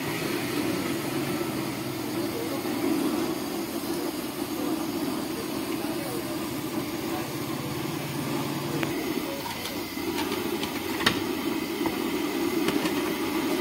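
Potato and onion pakoras deep-frying in hot oil in a large iron karahi, with a steady sizzle under a low, steady rumble. A sharp click comes about eleven seconds in.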